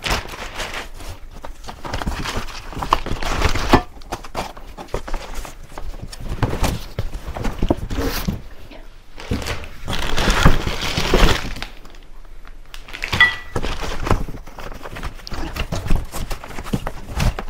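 Cardboard box and plastic-bagged wagon parts being handled: irregular rustling and crinkling of plastic, cardboard scraping, and scattered thunks of parts knocking against the box, louder about ten seconds in.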